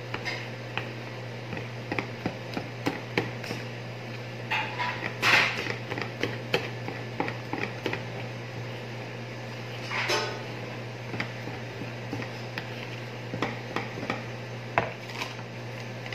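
Metal wire whisk beating a thick flour batter in a mixing bowl, its wires clicking and knocking irregularly against the bowl's sides, louder about five seconds in and again near ten seconds.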